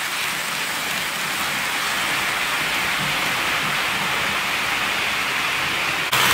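OO gauge Bachmann Class 20 model train with its tank wagons running on the layout track, giving a steady rolling hiss of wheels on rail. The hiss jumps abruptly louder near the end.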